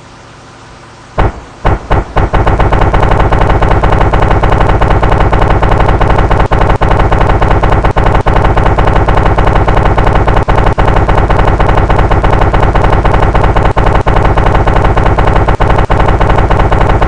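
Two-stroke engine starting: a few separate coughs about a second in, then it catches at about two seconds and runs loud and steady with a rapid, even firing beat, dropping out for an instant a few times.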